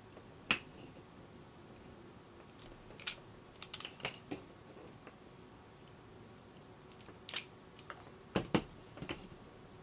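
Scattered sharp snips and clicks of wire cutters and wire strippers cutting and stripping the insulation from electrical wire: single clicks with pauses between, and small clusters about three seconds in and again near the end.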